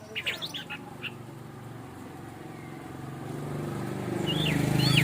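Orange-headed thrush song: a quick run of sharp chirps in the first second, then two short whistled notes near the end. Underneath, a low hum grows louder over the last two seconds.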